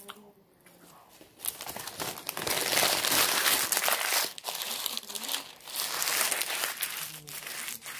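A food wrapper crumpled and crinkled in the hands close to the microphone. It starts about a second and a half in and is loudest around the middle.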